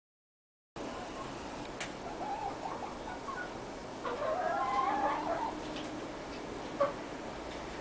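White-faced Black Spanish hens clucking and calling, with a longer rising call about four seconds in, and a couple of sharp clicks. The sound cuts in after a brief silence at the start.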